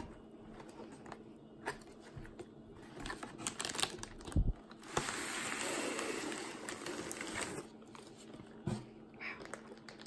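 Cardboard and plastic packaging handled and opened by hand: scattered taps and rustles, with a longer scraping rustle from about five to seven and a half seconds in.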